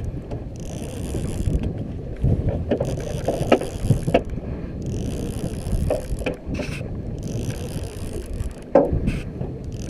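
Conventional fishing reel being cranked in repeated bursts of about a second each, its gears whirring and clicking, over steady wind buffeting the microphone, with a few sharp knocks.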